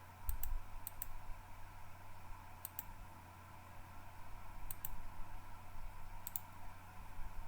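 Computer mouse clicking: five quick pairs of clicks spaced a second or two apart, over a low steady hum.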